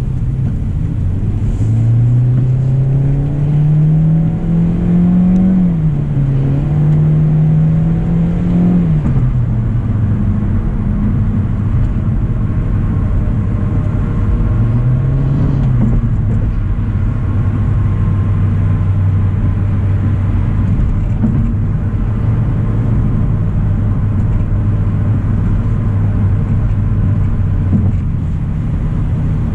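2025 Hyundai Elantra SEL's four-cylinder engine pulling the car up to speed, its pitch rising, dipping briefly about five seconds in, rising again, then falling back to a steady cruise hum over road noise.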